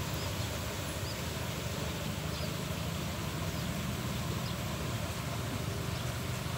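Steady outdoor background noise with a constant low engine-like hum, as of motorbike traffic, and a few faint, short high chirps.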